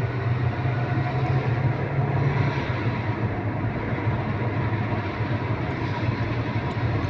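A safari vehicle driving on a dirt road: a steady low engine rumble under even road and tyre noise.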